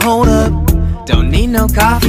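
Upbeat pop background music with a steady bass beat and a melodic line over it.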